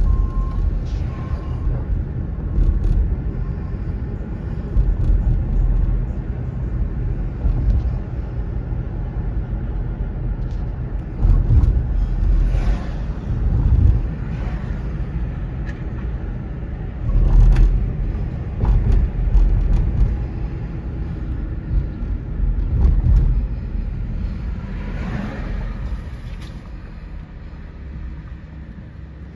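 Road noise inside a moving car: a steady low engine and tyre rumble, with several louder swelling whooshes along the way. It grows quieter near the end as the car slows to a stop.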